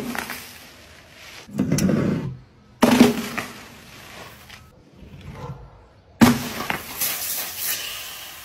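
Drink cans and bottles of fizzy drink rolling off a roof edge and smashing onto a pegboard below: a short rumble of rolling, then a sharp bang as a container bursts, followed by a fading hiss of spraying drink. This happens twice, about three seconds apart, after the hiss of a burst just before.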